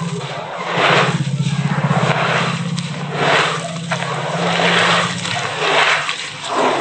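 Gloved hands squeezing and scraping a wet cement-and-sand mix in a plastic tub, a gritty squelching that swells and fades about once a second. A low steady hum underneath fades out about two-thirds of the way through.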